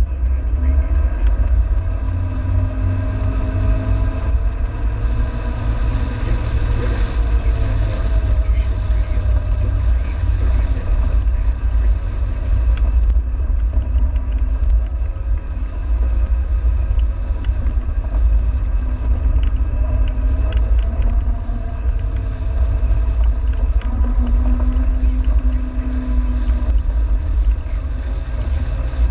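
A vehicle driving over a dirt track: a steady, loud low rumble from travel and wind, with a faint engine note rising and falling as it speeds up and slows.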